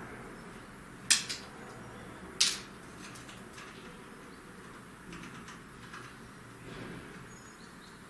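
Great tit pecking at the wooden bird feeder: two sharp taps about a second and a half apart, then a few fainter taps.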